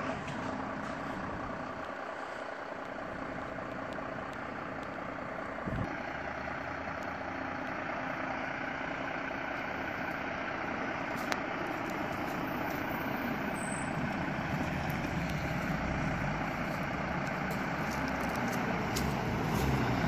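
Fire engines idling steadily at the station. Another vehicle's engine grows louder over the last few seconds as it drives up.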